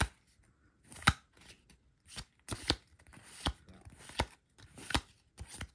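Digimon trading cards being flicked through one at a time, each card slid off the stack with a short snap. About eight snaps, one roughly every three-quarters of a second.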